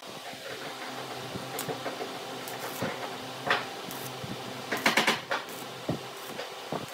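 Several sharp knocks and clicks, loudest in a quick run of them about five seconds in, over a low steady hum.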